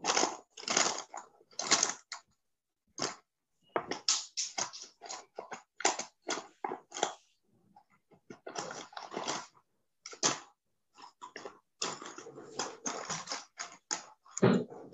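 Scattered rustling, scraping and clicking noises picked up by participants' open microphones on a video call. The bursts are irregular, and each one cuts in and out suddenly with dead silence between them.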